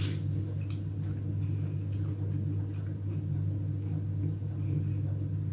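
A steady low hum, with a few faint clicks and rustles of plastic grocery bags being handled.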